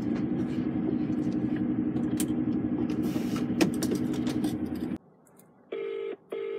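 Lorry's diesel engine idling steadily, with a few light clicks. It cuts off suddenly about five seconds in. Then a telephone ringback tone plays through the phone's speaker: two short rings of the British double-ring pattern.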